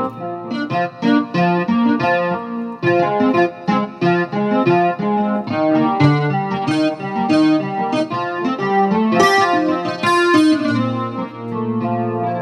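Korg M1 synthesizer playing a keyboard patch from a program card: a busy passage of quick notes and chords, each note starting sharply.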